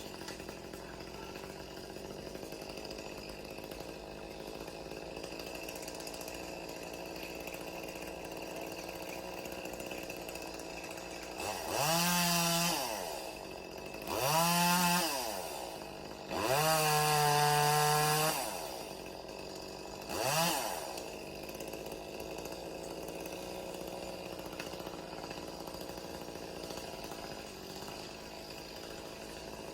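Two-stroke chainsaw idling, revved to full throttle four times, each rev rising and falling in pitch. The third is held longest, about two seconds, and the last is a brief blip.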